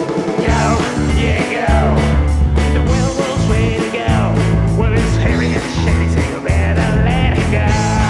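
Rock music soundtrack with a steady drum beat, bass and guitar.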